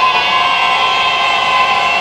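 A train's horn sounding one long steady blast, several tones held together, its pitch rising briefly as it starts.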